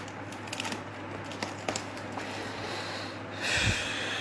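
Hands handling a cardboard appliance box, giving a few light clicks and taps. Near the end comes a short rush of breathy noise with a low thump, the loudest sound.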